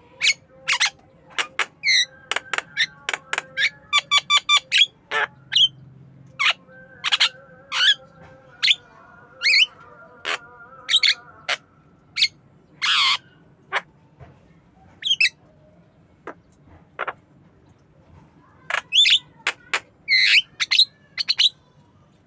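Javan myna calling: a run of sharp whistles, chirps and squawks, with a fast burst of short repeated notes about four seconds in and a quieter spell past the middle.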